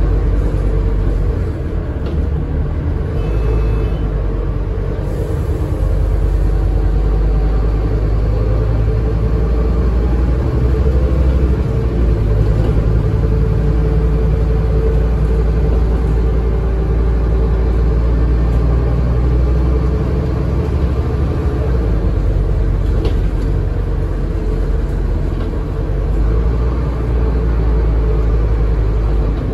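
Scania N230UD double-decker bus's five-cylinder diesel engine running as the bus drives, a steady low rumble heard from inside the upper deck.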